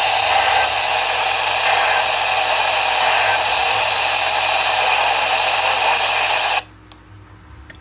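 Radio receiver static: a steady, loud hiss that cuts off suddenly about six and a half seconds in.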